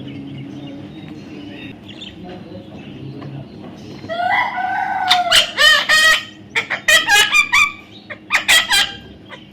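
Parrot calling: after a quiet start, about four seconds in, one longer gliding call, then a run of short, harsh, repeated squawks.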